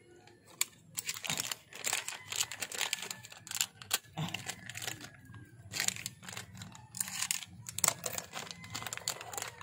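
Thin plastic packaging crinkling and rustling in irregular bursts as a new oil seal is unwrapped, busiest about two seconds in and again in the second half.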